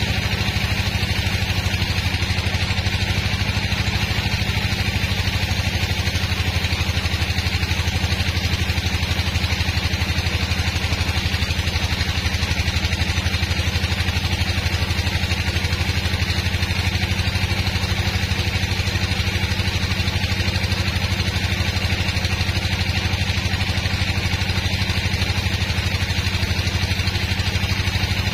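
Band sawmill running steadily while its blade cuts a long slab from a large hardwood log: an even, engine-like drone with a steady higher hiss.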